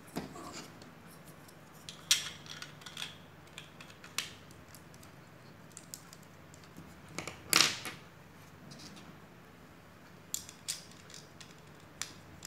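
LEGO bricks clicking and snapping as they are pressed together by hand, with plastic pieces clattering at irregular intervals; the loudest snap comes a little past halfway.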